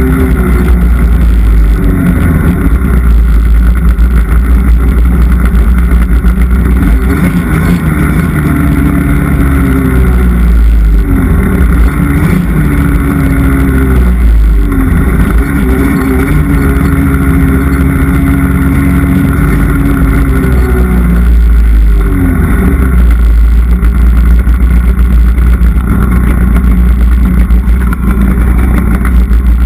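Polaris snowmobile engine, loud and close, revving up and down over and over as it is ridden, with a few brief drops in throttle.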